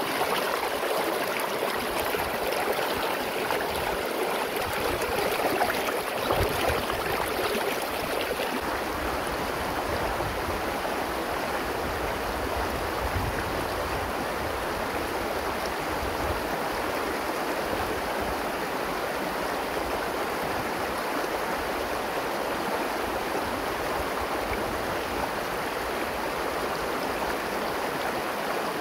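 River water flowing and rushing steadily, a little fuller in the first several seconds.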